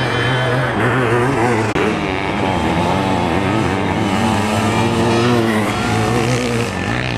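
Sidecarcross racing outfits' motorcycle engines revving, the pitch rising and falling as the riders work the throttle through dirt-track corners.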